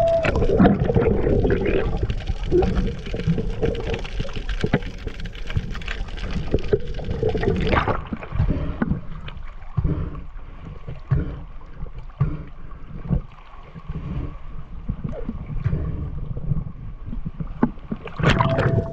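Water sloshing and splashing over a speargun-mounted camera as it moves through the water and breaks the surface: a dense, rumbling wash with many small knocks and splashes, duller after about eight seconds.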